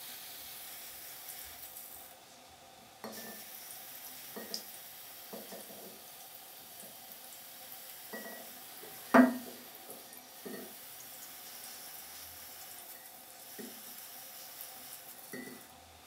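A 24V ultrasonic mist maker's vibrating disc fizzing and sizzling in a mug of water as it atomises it into cool mist: a steady high hiss that cuts out briefly about two seconds in and comes back a second later. Scattered light clicks and one sharp knock about halfway through sit over it.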